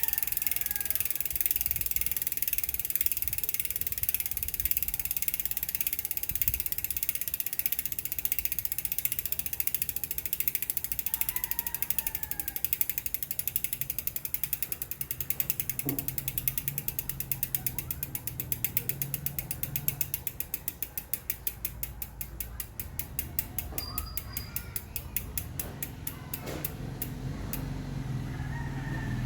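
SRAM X9 rear hub's three-pawl freehub ticking as the wheel coasts. The clicks run as a fast buzz, then slow to separate ticks as the wheel spins down, and stop near the end.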